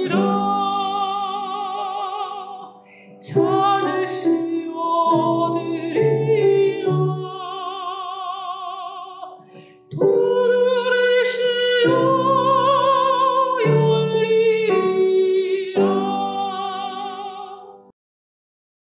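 Mezzo-soprano singing a Korean Catholic hymn in classical style with wide vibrato, with grand piano accompaniment. The song ends on a long held note that fades and stops just before the end.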